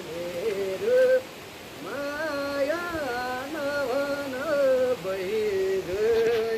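Music: a voice singing a slow melody of long, held notes that slide up and down, with short pauses between phrases.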